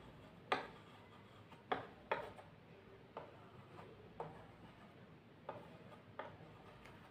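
Chalk on a chalkboard while writing and underlining: a faint series of short, sharp ticks, about eight, irregularly spaced, as the chalk strikes and is drawn across the board.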